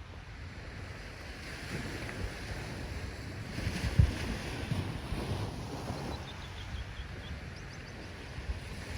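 Ocean waves breaking and washing in, swelling twice, with wind buffeting the microphone and a short low thump about four seconds in.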